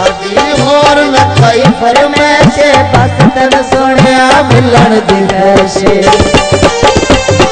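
Instrumental interlude of Punjabi folk music: a tabla keeps a rhythm, its bass drum strokes sliding down in pitch, under a wavering melody instrument.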